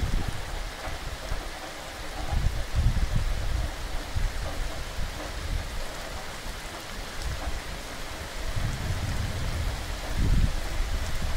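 Steady rain falling on grass and sea, an even hiss, with a low rumble that swells and fades about three seconds in and again from about nine seconds on.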